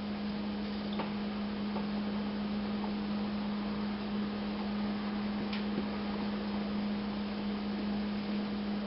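A steady low electrical hum over faint background hiss, with a couple of faint light clicks.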